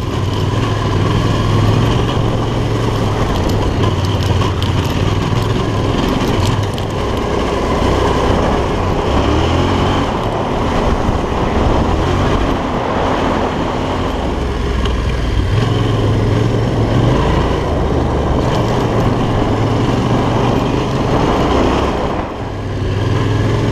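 Yamaha Ténéré 700's parallel-twin engine running under way, its note rising and falling with the throttle and easing off briefly near the end, with riding noise on the bike-mounted microphone.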